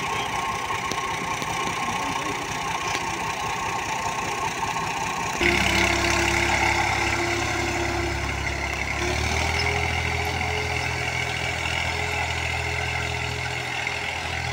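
Tractor engine running steadily at idle, becoming abruptly louder about five seconds in, with its pitch stepping up slightly a few seconds later.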